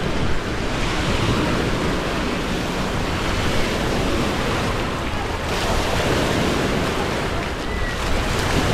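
Steady, loud rushing noise of splashing water mixed with wind buffeting the microphone, with faint voices in the background.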